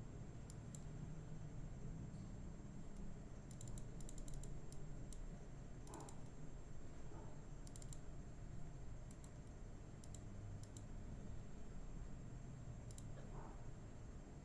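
Light clicks on a computer's keys and buttons, some single and some in quick runs of three or four, over a low steady hum.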